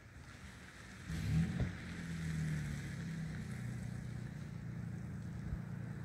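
Low engine drone that comes in about a second in and then holds steadily, with a brief knock just after it begins.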